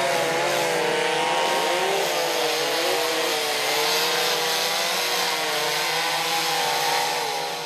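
Two-stroke chainsaw running at full throttle as it cuts into a large log, its pitch wavering slightly as the chain bites into the wood. It fades out near the end.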